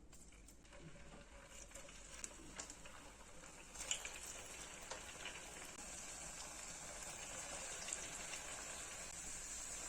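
Taro slices frying in hot oil: a sizzling hiss with small crackles that grows louder about four seconds in.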